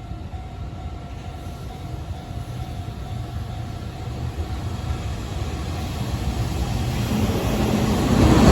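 Freight train hauled by a JR Freight EF210-300 electric locomotive, approaching and growing steadily louder. It is loudest near the end as it draws close.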